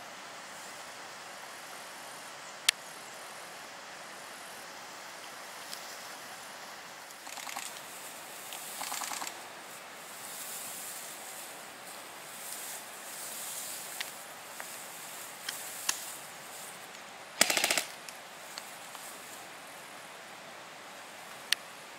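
Airsoft electric guns (AEGs) firing: a few scattered single sharp cracks, fainter rattling bursts about 7 and 9 seconds in, and one loud short full-auto rattle about 17 seconds in.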